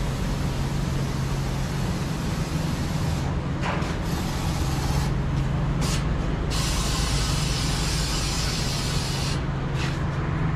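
Heavy truck diesel engine running steadily, with a hiss of air that swells and drops several times over it.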